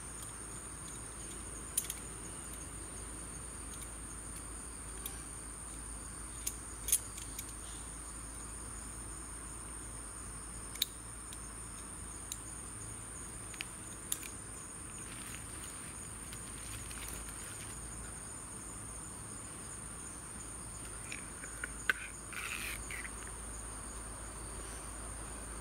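Steady high-pitched drone of insects, with scattered sharp clicks as a deeply swallowed lure is worked out of a snakehead's mouth.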